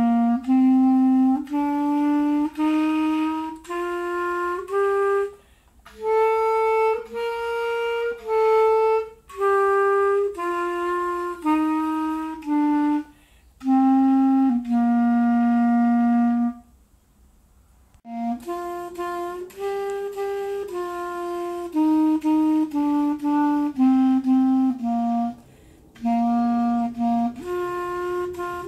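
Yamaha YCL-255 B-flat student clarinet playing a concert B-flat scale one note at a time, stepping up an octave and back down. After a short break a second run of notes follows.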